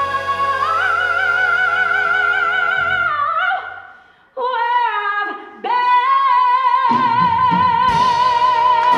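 Female lead voice with ensemble and pit orchestra singing the closing notes of a gospel-style show tune. The music breaks off about four seconds in, a short vocal run follows with the band dropped out, then the soloist holds one long high note with vibrato as the band comes back in beneath it.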